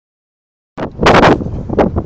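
Wind buffeting a phone microphone, with handling noise, in a few loud rumbling surges that start just under a second in.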